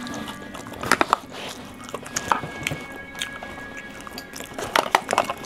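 Scattered clicks, knocks and rustles of food packaging and gear being handled and packed up, over faint background music with a steady high tone.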